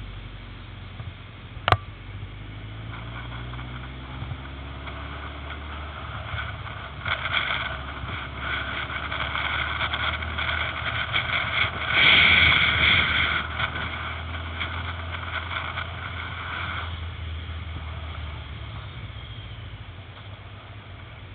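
Yamaha XJR motorcycle's inline-four engine running on the move, heard from a helmet-mounted camera. The sound grows louder from about seven seconds in, is loudest around twelve seconds and eases off again by about seventeen seconds. One sharp click about two seconds in.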